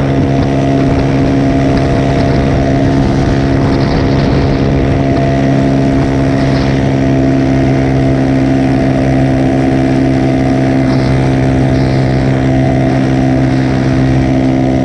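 Motorcycle engine, a 150 fitted with a 190 cc big-bore kit, running at a steady cruising speed with an unchanging pitch, with road and wind noise on the microphone.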